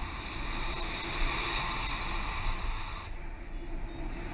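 Wind rushing over a selfie-stick camera's microphone as a tandem paraglider flies, a steady rumbling hiss that thins briefly about three seconds in.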